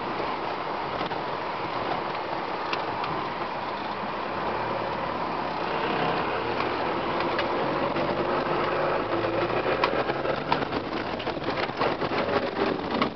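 Off-road 4x4 driving on sand, its engine and running noise heard from inside the cabin, steady with small shifts in engine pitch. In the last few seconds a scatter of sharp clicks and rattles joins in.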